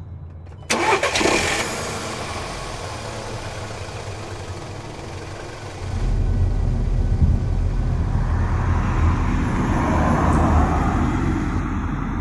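Car engine started: it catches with a sudden loud burst a little under a second in and settles into a steady run. From about halfway it runs louder and lower.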